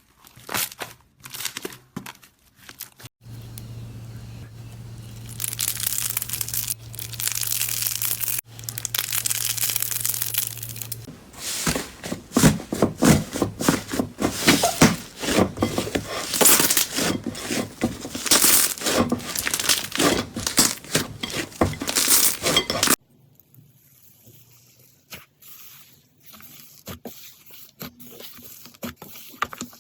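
Slime squeezed and poked by hands, crackling and crinkling in dense runs of small pops, with a steady low hum under a hiss for several seconds early on. The sound cuts off abruptly about 23 seconds in and turns to quieter, sparser clicks.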